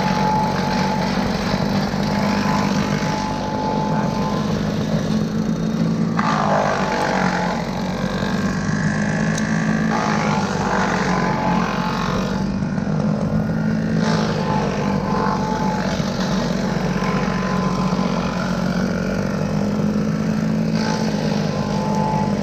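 A small gasoline engine running steadily at a constant speed. It turns rougher and noisier about six seconds in and again a few seconds later.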